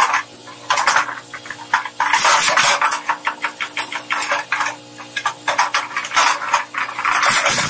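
Twin-shaft shredder running with a steady motor hum while its cutter discs crack and crunch a plastic car tail light. The cracks come thick and irregular, in loud clusters, as the housing is torn apart.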